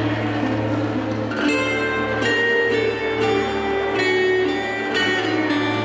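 Bulgarian folk dance music: a plucked-string melody over a steady low drone.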